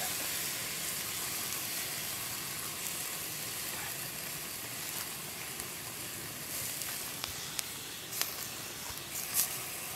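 Beef and vegetables sizzling and hissing in a hot cast-iron Dutch oven over a campfire, with wine just poured in. The hiss eases off slowly, and a few light clicks come near the end.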